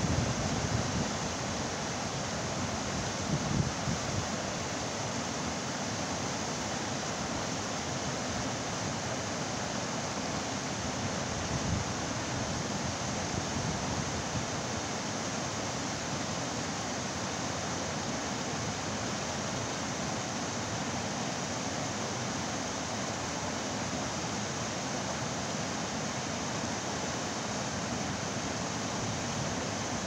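Whitewater rapids of a small river rushing over and between boulders: a steady, even rush of water.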